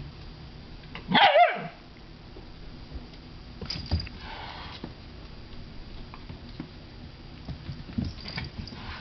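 A puppy gives one short, wavering yelp-like bark about a second in, the loudest sound here. A few soft knocks and scuffles of paws on the tile floor follow as the puppy and cat tussle.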